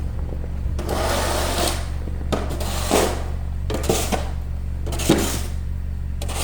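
A steady low mechanical hum with rough scraping strokes over it, about one a second, some ending in a short knock.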